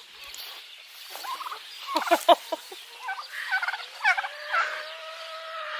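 Turkey gobbling: a rapid rattling run of calls about two seconds in, the loudest moment, then more bird calls and a long drawn-out note near the end.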